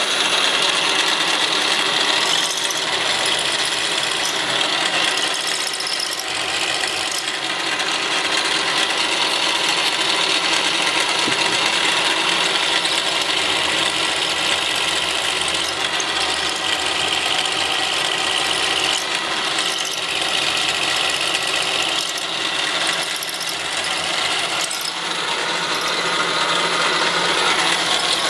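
Hafco Metalmaster geared-head mill-drill running with an end mill plunging into the metal of a pulley, cutting a half-round key slot. The machine and cut make a steady, continuous cutting noise.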